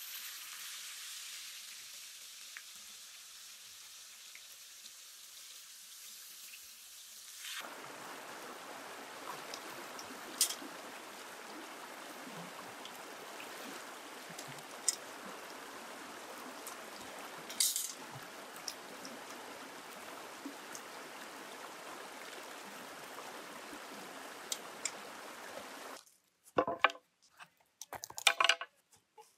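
A faint hiss at first, then a steady rush of shallow river water flowing over rocks, with a few sharp knocks. Near the end the water sound cuts off, and a few clinks and knocks follow as a knife and wooden cutting board are handled on a rock.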